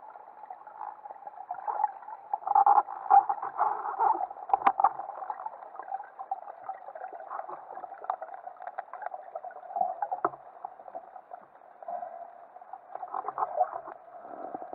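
Muffled underwater sound picked up through a camera's waterproof housing during a free dive. A steady hiss is broken by scattered crackles, clicks and bubbling, with louder bursts about two to four seconds in and again near the end.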